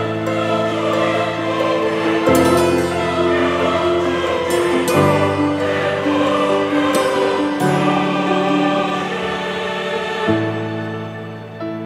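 Intro music of held, choir-like chords that change about every two and a half seconds.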